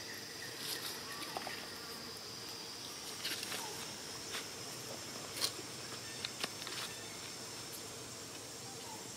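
Steady high-pitched insect drone, with a few short clicks or rustles scattered through it, the sharpest about halfway through.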